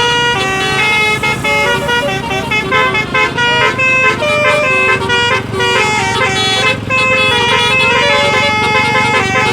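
Basuri telolet bus horns playing a tune of steady notes that step from pitch to pitch, with a few short sliding notes, over the low rumble of the buses.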